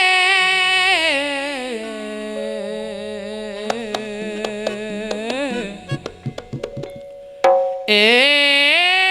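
Kuda kencak accompaniment music: a loud wavering melody on a reed pipe over drums, with a run of drum strokes in the middle. The music breaks off briefly and comes back suddenly about seven and a half seconds in.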